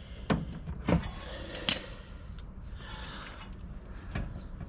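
Hand tools and metal parts on a car's rear brake giving a few sharp knocks and clicks, with light scraping between them, as the handbrake cable is worked free of the caliper.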